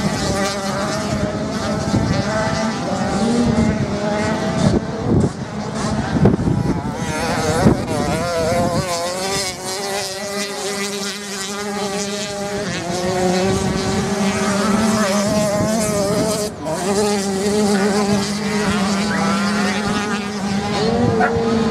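Off-road motorcycles racing on a beach sand track, their engines revving up and down as they ride the course at a distance.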